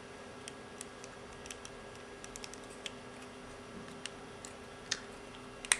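Small plastic parts of a Transformers G1 Seacon figure (Overbite) clicking and snapping as the toy is transformed by hand: scattered light clicks, with two sharper ones about five seconds in and near the end.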